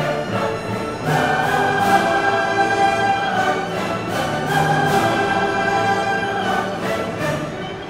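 Classical orchestral music with long held chords that change every second or two.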